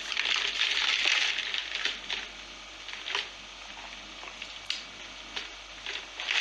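A burst of rustling handling noise, then scattered soft clicks and ticks as a plastic cup of iced drink is handled and sipped through a straw.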